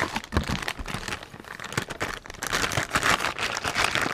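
Cardboard box and plastic packaging being handled while a part is unpacked: crinkling and rustling with many small irregular clicks, busier in the second half.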